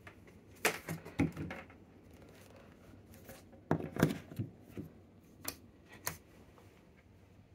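Plastic clicks and knocks of a mains plug being handled and pushed into an AC outlet on a Bluetti EB200P portable power station, loudest in a cluster about four seconds in. Single sharp clicks follow near the end as the power button is pressed.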